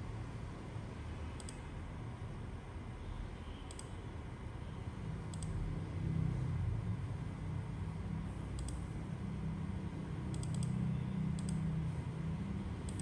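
Computer mouse clicks, single and a few seconds apart, with two in quick succession near the end, over a low hum that swells about halfway through.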